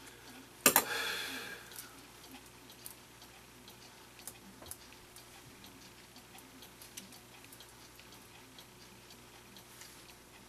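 A sharp metallic clink about a second in, ringing briefly as it fades. Then a clock ticks faintly and steadily, roughly twice a second.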